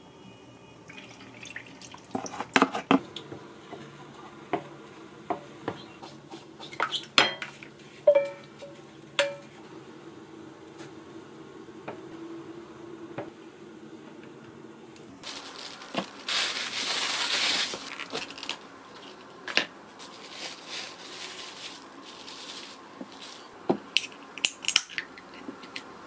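Kitchen utensil clatter: a wooden spoon scraping and knocking against a plastic takeaway bowl and a stainless steel saucepan, with sharp clicks and taps, then tongs handling food on a plate. About fifteen seconds in, a loud hissing noise lasts a few seconds.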